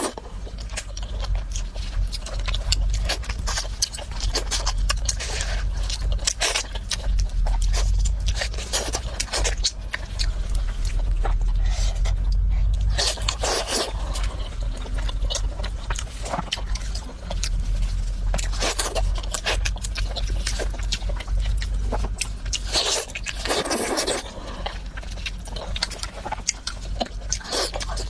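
A person eating close to the microphone: chewing and biting food, with irregular scrapes and clicks.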